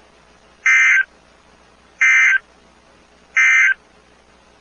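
Emergency Alert System end-of-message code: three short bursts of SAME digital data tones, each about half a second long and a little over a second apart, marking the end of the alert.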